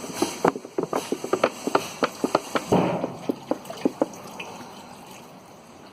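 Fuel being poured from a container into a homemade parts washer bucket, with irregular glugging and splashing that thins out toward the end.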